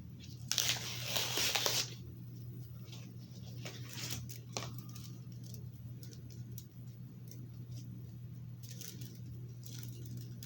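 A chocolate bar's wrapper being opened by hand. There is a loud rustling tear lasting just over a second, about half a second in, then scattered soft rustles and clicks, with more rustling near the end. A steady low hum runs underneath.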